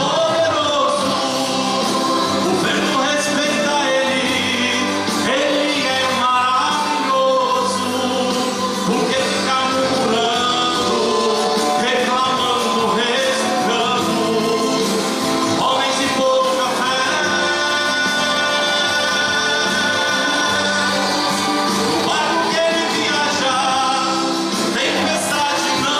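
A man singing a Portuguese gospel hymn into a microphone over instrumental backing music, his voice amplified.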